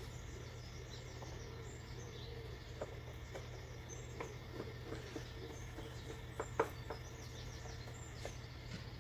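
A few light clicks and taps from small parts being handled, the loudest about six and a half seconds in, over a steady low hum, with faint bird chirps in the background.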